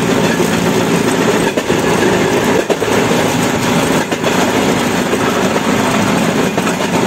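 Railway motor trolley running along the track: a steady engine and wheel noise on the rails, with a few faint clicks as the wheels pass rail joints.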